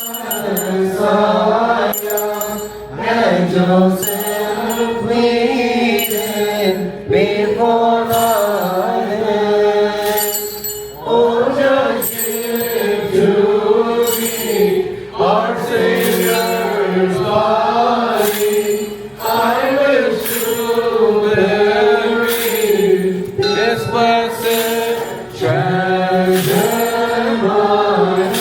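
Liturgical hymn chanted in an Orthodox church service: a sung melody that rises and falls without a break, with sharp strikes about once a second keeping time.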